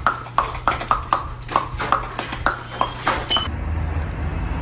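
A rapid, irregular series of sharp ringing knocks, about three a second, that stops abruptly about three and a half seconds in.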